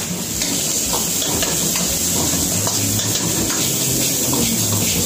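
Chopped onion and capsicum sizzling as they are sautéed in a wok. A steel ladle scrapes and clinks against the pan again and again as it tosses them.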